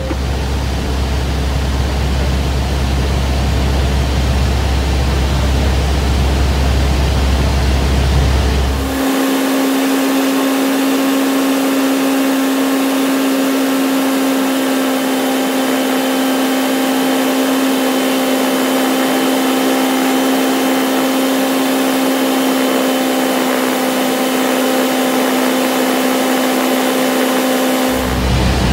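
Cessna 172 engine and propeller droning steadily inside the cabin, with a rush of air noise. About nine seconds in, the footage switches to sped-up playback and the drone turns into a steady higher-pitched hum. Near the end it drops back to the normal low drone.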